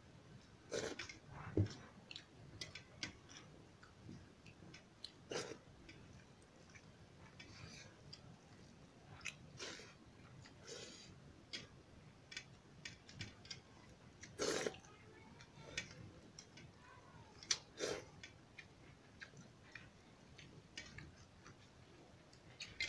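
Quiet eating by hand: chewing, and fingers mixing rice against steel plates, with many scattered light clicks and a few louder knocks.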